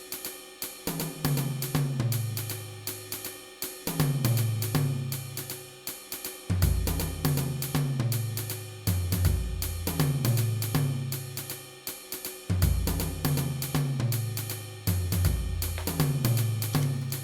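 Background music: a drum kit with hi-hat and cymbals over a stepping bass line, at a steady beat.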